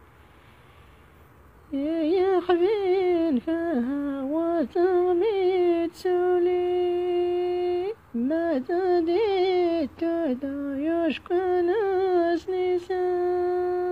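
A woman's voice singing a wordless, heavily ornamented melody in Amazigh (Berber) song style. It starts about two seconds in, with quick trills and turns between long held notes.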